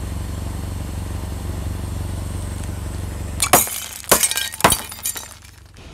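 Philips fluorescent tubes bursting one after another under a car tyre. After a low steady rumble come three sharp pops of breaking glass about half a second apart, with tinkling shards and a smaller crack after them.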